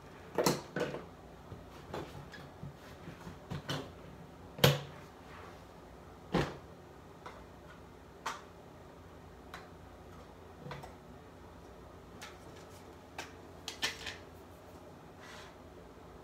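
Small makeup containers and tools being picked up and set down on a bathroom counter: scattered clicks and knocks, a dozen or so, the loudest about four and a half seconds in and another strong one about six and a half seconds in.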